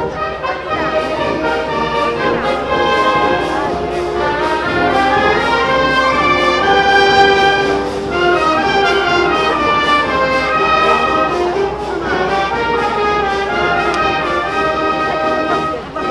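Brass band playing a melody, with short breaks between phrases about halfway through and again a few seconds later.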